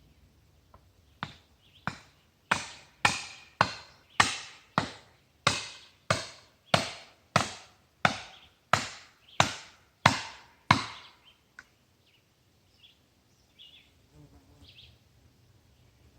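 An axe chopping into dead ash wood: about sixteen sharp blows at a steady pace of a little under two a second, stopping after about eleven seconds. Faint insect or bird chirps follow.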